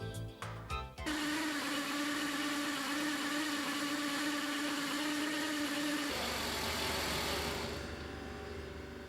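Background music for about a second, then a portable valve grinding machine's motor running steadily with a hiss and a held whine. About six seconds in the whine stops, a lower hum takes over and the hiss fades away.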